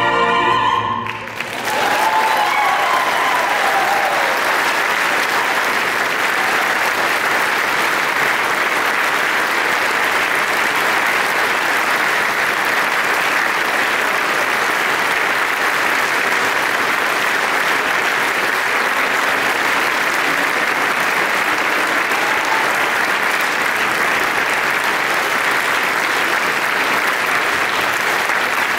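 An orchestra and two opera soloists hold a final chord that cuts off about a second in. A concert audience then breaks into steady, sustained applause.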